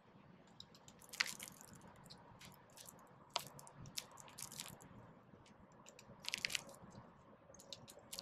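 Sparrows pecking and cracking seed on the ground close to the microphone: a scatter of sharp little clicks and crunches, some coming in quick clusters.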